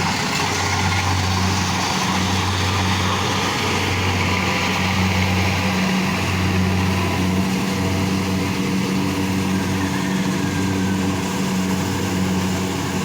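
A small engine running steadily with a low, even hum that dips briefly a few times.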